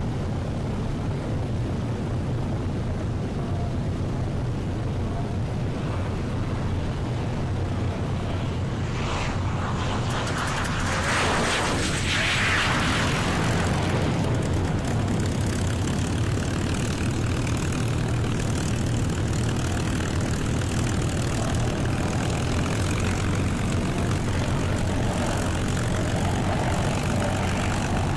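P-51 Mustang's V-12 piston engine running steadily on the ground, its propeller turning, with a brief louder rush of noise about eleven to thirteen seconds in.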